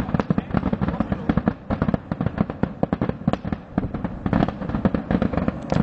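Massed firework barrage: hundreds of firecrackers and rockets bursting in rapid, overlapping bangs, a dense continuous crackle of explosions with no pause.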